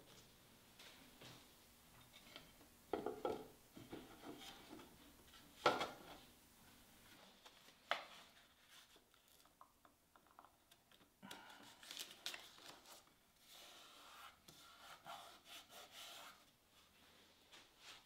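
Hands working wooden case parts: scattered light knocks and clicks with rubbing and scraping. The sharpest knock comes about six seconds in, and a busy run of small clicks and rubbing follows in the second half.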